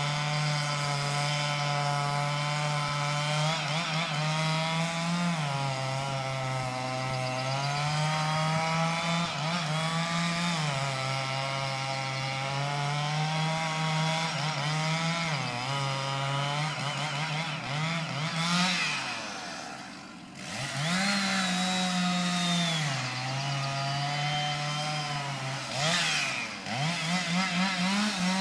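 Two-stroke chainsaw cutting grand fir, its engine pitch sagging and recovering again and again as the bar loads in the cut. About twenty seconds in it drops back almost to idle, then revs up again, with a few quick throttle blips near the end.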